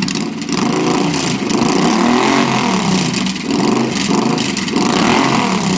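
2011 Suzuki Boulevard C50T's 805 cc V-twin through a 2.5-inch Road Burner aftermarket exhaust, revved up and back down a few times.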